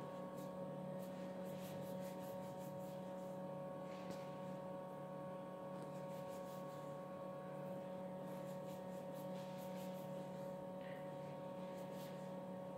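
A steady low hum of room noise, with faint light taps and scrapes from a plastic dough scraper cutting soft dough on a stone counter.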